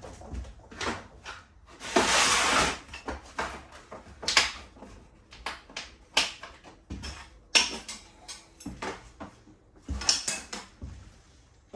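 Irregular knocks and clatter from hand demolition of a caravan's interior fittings, with a longer rattling burst about two seconds in.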